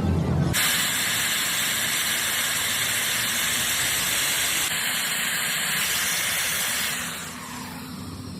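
A loud, steady hiss starts abruptly about half a second in and fades away near the end.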